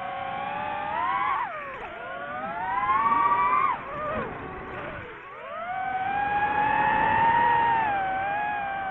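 DJI FPV drone's motors and propellers whining, the pitch swinging up and down with the throttle: it climbs and drops sharply twice in the first four seconds, dips low about five seconds in, then rises and holds high before easing off near the end.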